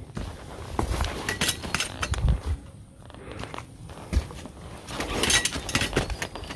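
Footsteps on a forest dirt trail, crunching through dry leaf litter with rustling, coming in two busier stretches with a lull in between.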